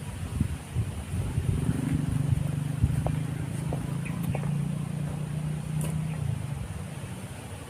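A motor engine passing by: a steady low hum swells up about a second and a half in, holds, and fades away near the end, with a few light clicks over it.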